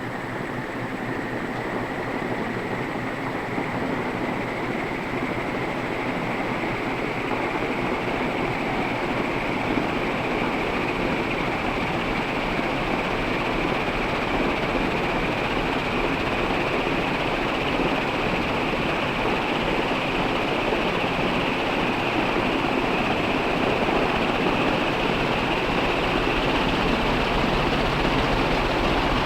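Canarm CP56 56-inch industrial ceiling fan running: a steady rush of air and motor noise that slowly rises in pitch and grows louder as the fan gathers speed.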